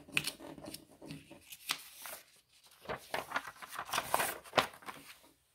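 Loose sheets of writing paper being handled and slid over one another on a desk: irregular rustling and crinkling with small sharp ticks, busiest about three to four and a half seconds in.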